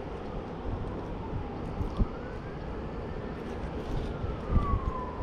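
Faint siren wailing: one slow rise in pitch over the first few seconds, then a long fall, over a steady rushing background, with a few low thumps.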